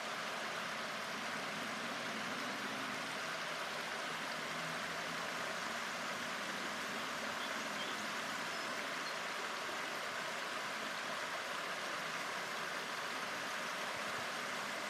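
Shallow river flowing over a stony riffle: a steady, even rush of water.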